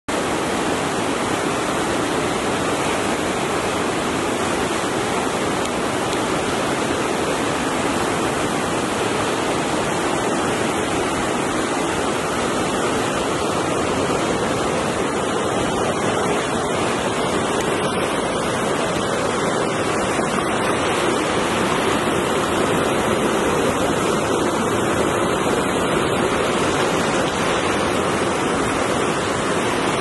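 Mountain river rushing over boulders through rapids: a steady, unbroken noise of white water.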